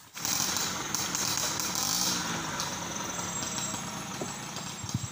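Engine of a small truck loaded with teak logs, running as the truck moves off along a dirt forest track. The sound fades gradually over the second half.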